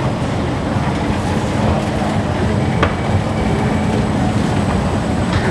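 Escalator running with a steady low rumble and a faint hum, with one sharp click about halfway through.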